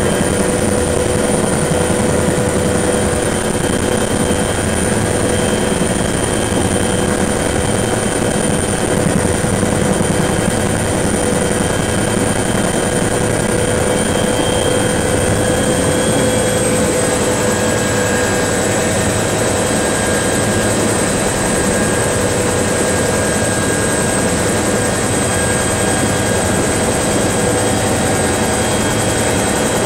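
Bell 212 helicopter's twin turboshaft engines and main rotor running, heard from inside the cockpit: a steady high turbine whine over dense rotor and engine noise, the whine dropping slightly in pitch a little past halfway.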